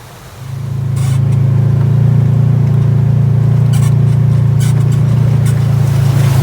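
Off-road vehicle engine running at a steady speed, a loud, even hum that comes in about half a second in. A few sharp clicks and rattles sound over it.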